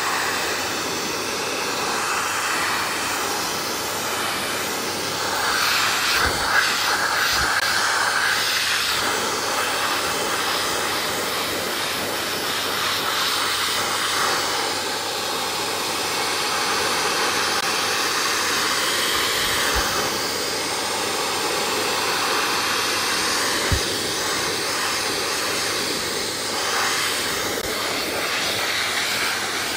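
Vacuum cleaner running with a steady rush of air as its hose nozzle sucks loose shedding undercoat from an American Akita's coat, the airflow brightening at times as the nozzle works through the fur. A couple of short knocks stand out.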